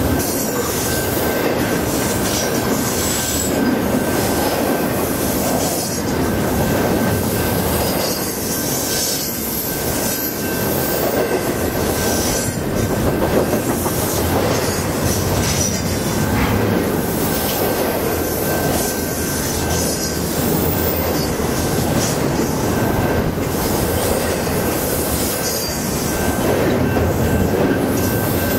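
Double-stack intermodal container cars of a freight train passing close by at speed: a loud, steady rush of steel wheels on rail, with a thin steady high tone riding over it.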